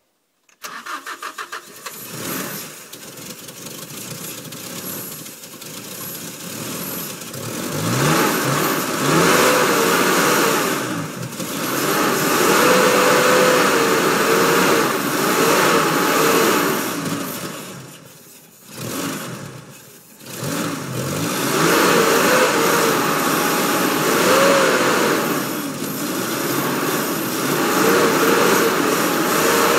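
Mazda B2600i pickup's 2.6-litre four-cylinder engine cranks briefly, catches, and is revved up and down repeatedly. Once, about two-thirds of the way through, it sags almost to nothing before picking up again.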